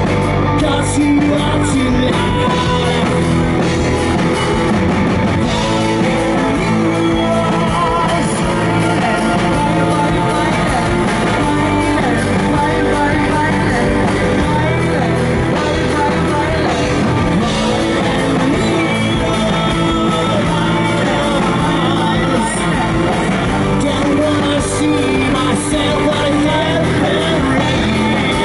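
Live amplified music: a woman singing into a microphone over loud rock backing.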